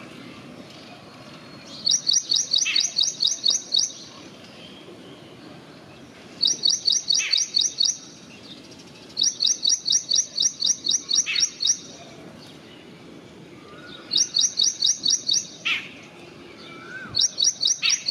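Bird song: five bursts of rapid, high chirping notes at about five or six a second, each burst lasting around two seconds. Between the bursts come single sharp, downward-sliding calls.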